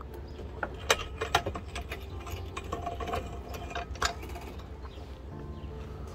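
Irregular clicks and clatter of tools and plastic trim being handled while the car's underbody covers are refitted, sharpest about a second in, over a steady low hum.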